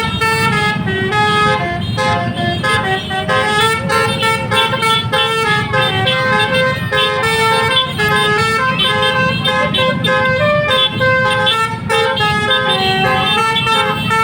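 Basuri 'telolet' multi-tone bus horn playing a melody, its notes stepping from one pitch to the next without pause, over a low rumble.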